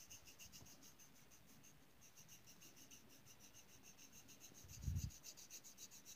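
Faint scratching of a coloured pencil shading on paper in quick, even strokes. A low thump about five seconds in.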